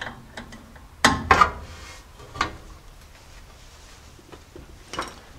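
Metal clinks and knocks of a breaker bar and hex socket being fitted onto a tight brake caliper bolt: a cluster of clanks about a second in, then single clicks, one around halfway and another near the end.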